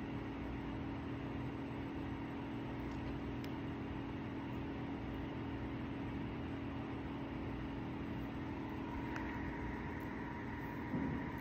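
Steady mechanical room hum with a constant low drone; a faint higher tone joins about nine seconds in.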